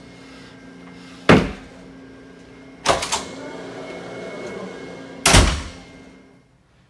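Office door banging: three sharp bangs about one and a half to two seconds apart, the middle one a quick double knock, over a low steady room hum that cuts out near the end.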